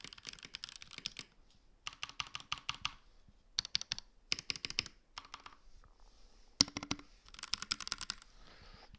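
Typing on a Keychron V4 mechanical keyboard close to the microphone: quick runs of key clicks in several bursts with short pauses between them. One sharper, louder clack comes about two-thirds of the way through.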